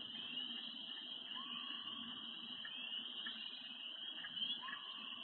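Spring night chorus of peeping frogs: a dense, steady mass of short high calls. A fainter rising call repeats about every three seconds beneath it.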